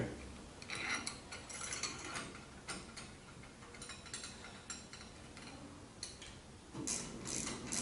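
Faint clicks and light scraping of metal parts as the end cap is turned and seated onto a Minn Kota trolling motor's lower unit housing, with a new armature fitted inside.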